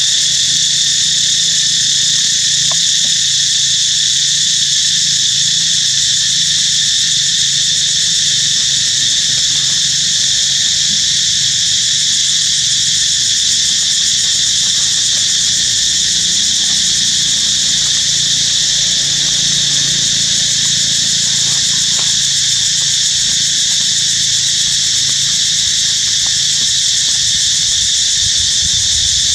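Loud, steady insect chorus: an unbroken high-pitched drone that holds the same pitch throughout.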